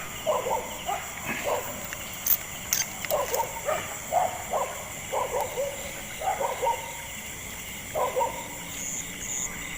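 Dogs barking repeatedly in short groups of barks.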